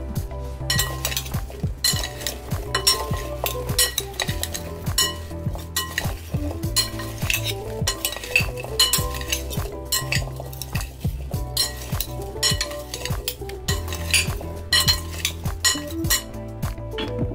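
A spoon stirring oiled, spiced sweet potato cubes in a glass bowl, with the wet food squelching and the spoon repeatedly clinking and scraping against the glass.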